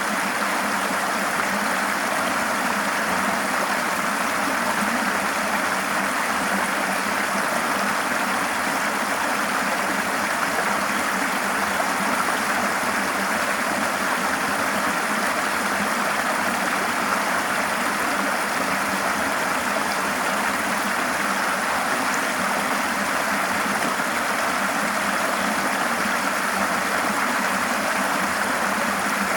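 A river flowing steadily over rocks, an even rushing of water.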